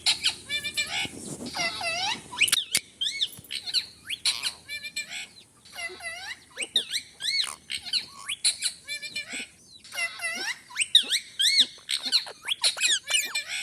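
Parrot making rapid runs of short, high chirps and squawks that rise and fall in pitch, in clusters with brief pauses between them. One sharp click about two and a half seconds in.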